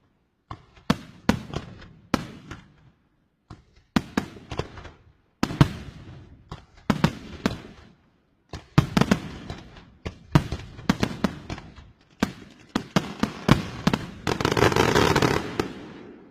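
Fireworks from a cart-mounted fireworks show going off in loud, sharp bangs at an uneven pace, several in quick succession. Near the end they give way to a dense crackle of many small reports for about two seconds, which then fades.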